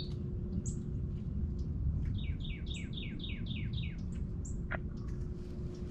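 A songbird singing a quick series of down-slurred whistled notes, about five a second, over a low steady rumble.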